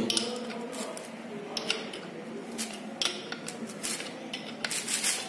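Spanner turning the centre bolt of a gear puller clamped on a motorcycle crankshaft, drawing the gear off the shaft: irregular light metallic clinks and ticks, about a dozen scattered through.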